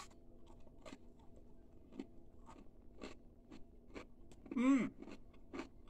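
A hard, crunchy ginger snap cookie being bitten and chewed, heard as a string of short, crisp crunches about two a second. A brief voiced hum rises and falls in pitch near the end.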